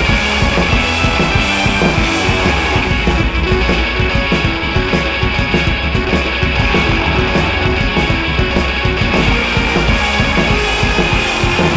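Loud rock music with distorted guitars and a steady driving beat, used as a soundtrack.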